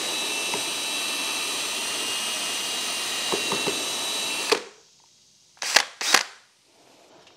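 Power drill spinning a mixing rod in a five-gallon bucket of water-soluble cutting-oil coolant, running with a steady high whine that stops abruptly about four and a half seconds in. Two sharp knocks follow about a second later.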